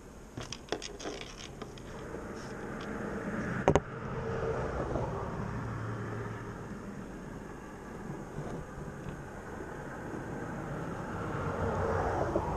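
Road traffic passing by, a steady rushing that swells as vehicles go past, twice. A few light clicks come early, and one sharp click a little under four seconds in.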